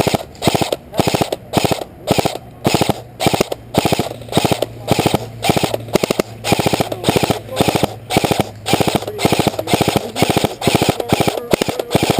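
Airsoft gun firing in rapid short bursts, a cluster of sharp pops about twice a second, kept up throughout.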